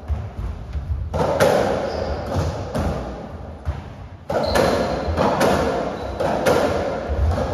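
Racketball rally: the ball smacked by rackets and striking the court walls, a quick, irregular run of sharp hits and thuds that ring on in the hall. The hits come thickest about a second in and again from about four seconds on.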